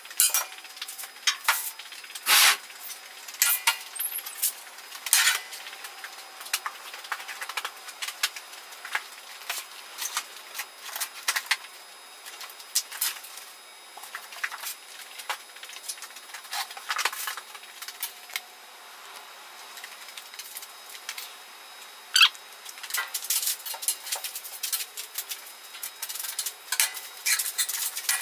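Parts of a CNC plasma table kit being unpacked by hand on a steel bench: packaging rustling and small metal parts clinking and knocking in an irregular run of clicks. Louder knocks come about two and a half seconds in and again around twenty-two seconds, with a busier stretch of clatter near the end.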